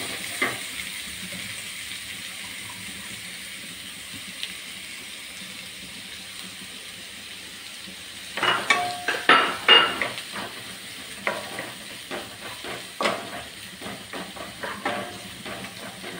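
Chopped onions sizzling in hot oil in a non-stick kadai. The sizzle eases a little over the first half. From about halfway, a wooden spatula scrapes and knocks against the pan as the onions are stirred.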